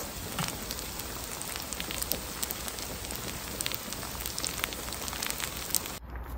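Oil sizzling under a Korean vegetable pancake frying on a round griddle pan over a portable gas stove: a steady hiss dotted with many quick crackles and pops. It drops away suddenly near the end.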